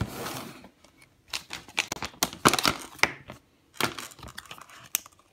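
Paperboard product box being handled and opened by hand: a short rustling slide at the start, then irregular scrapes, taps and clicks of cardboard flaps and packaging.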